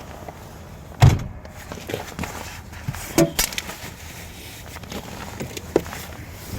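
A few knocks and clicks from a car's door and interior being handled. The loudest is a thump about a second in, then a sharper knock about three seconds in and a small click near the end.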